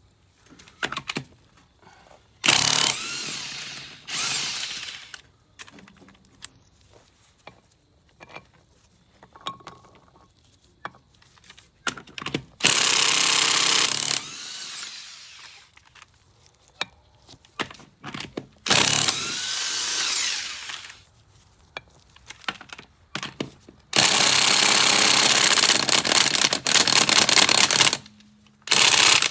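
Power tool run in short bursts, four of about two seconds each and a longer one of about four seconds near the end, with small clicks and knocks of handling between them.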